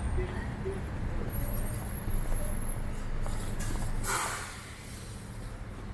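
Street traffic: a vehicle engine running with a steady low rumble, and a short burst of hiss about four seconds in, after which the sound quietens.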